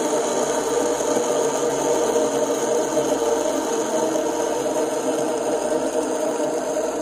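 Fidget spinners spinning on a flat surface, their bearings making a steady, unbroken sound.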